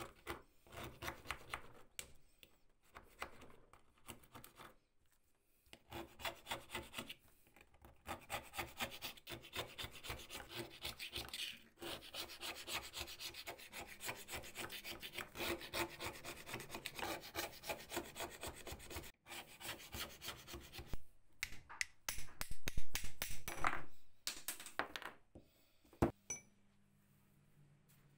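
Hand-held razor-blade scraper scraping caked dirt and rust off a metal bar in quick repeated strokes, with a few short pauses and a louder run of strokes near the end.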